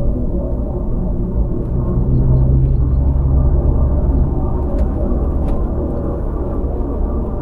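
Land Rover Freelander driving along a country road: a steady low rumble of engine and road noise, swelling slightly a couple of seconds in.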